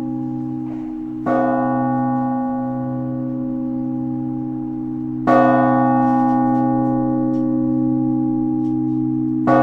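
Large Russian Orthodox church bell rung in the blagovest, the slow single-bell ringing that calls to the All-Night Vigil. Three strokes about four seconds apart, each ringing on with a long low hum into the next.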